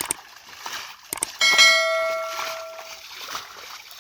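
A few sharp knocks, then a struck metal object rings out about one and a half seconds in, a single clang that dies away over about a second and a half.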